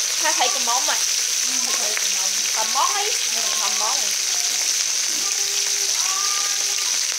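Two whole mackerel frying in hot oil in a steel wok: a steady, even sizzle.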